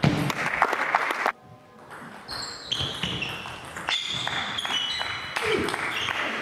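Table tennis ball clicking back and forth off bats and table in a doubles rally, with short high squeaks from players' shoes on the hall floor.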